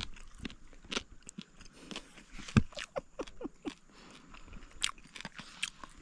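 A person chewing and crunching fried fish close to the microphone: irregular crisp crunches, the sharpest about two and a half seconds in.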